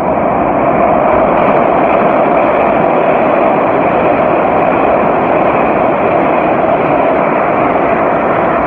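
New York City subway train running on the rails, a loud steady rush of wheel and track noise that swells slightly in the first second and then holds.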